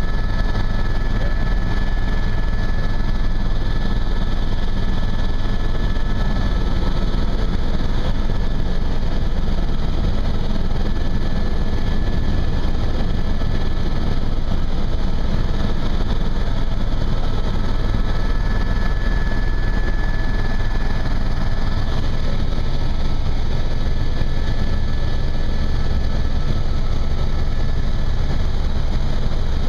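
Helicopter in steady flight heard from inside the cabin: a constant low drone of rotor and engine, with a thin steady high whine over it.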